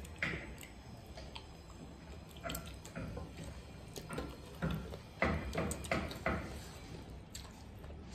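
Hand-eating sounds: fingers squishing and mixing rice into chicken curry on metal plates, with wet chewing and lip smacks, in a run of short wet clicks and smacks that is busiest a little past the middle.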